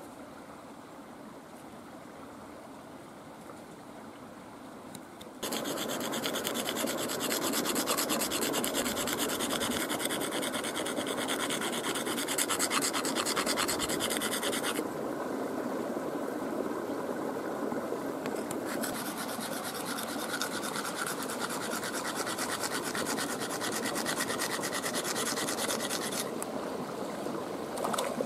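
A freshwater mussel shell scraped rapidly back and forth on a flat stone, a dense rasping grind that grinds its edge into a cutter for arrow shafts. It starts suddenly about five seconds in, eases for a few seconds after the middle, then resumes and stops shortly before the end.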